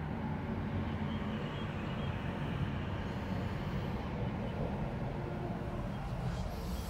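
An engine running steadily: an even low rumble with no change in speed.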